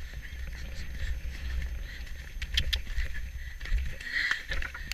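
Wind rumbling on the microphone of a camera worn by a rider on a horse moving at pace, with a few sharp clicks and knocks about halfway through.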